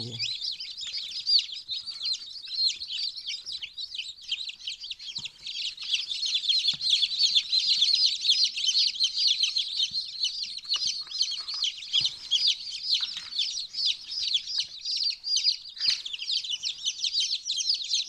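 A crowd of newly hatched chicks peeping continuously, many high chirps overlapping, growing a little louder about six seconds in.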